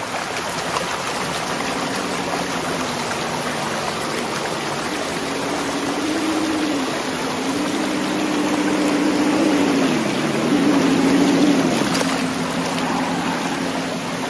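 A shallow stream rushing and splashing over rock as an RC crawler drives through it, its motor whining under the water noise. The whine rises and falls in pitch several times with the throttle and is loudest in the second half.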